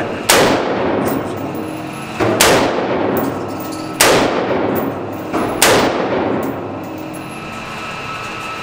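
Four single shots from a 5.56 AR-15-style rifle, fired deliberately about a second and a half to two seconds apart, each with a long echoing tail off the walls of an indoor range; after the fourth shot only a steady hum remains.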